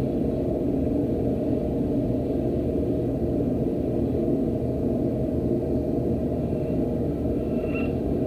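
Cassette recording of crows played in reverse, in a gap between caws: steady low rumbling noise from the recording, with a faint short reversed call near the end.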